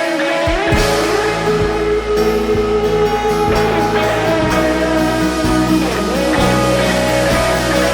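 Worship band playing a song: electric guitar over bass and drum kit, the bass and drums coming in about half a second in.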